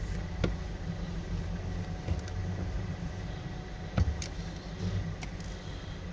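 Small sharp clicks and taps from a precision screwdriver and fingertips working at the screws of a Xiaomi Redmi 9A's plastic midframe, about five in all, the loudest about four seconds in, over a steady low background rumble.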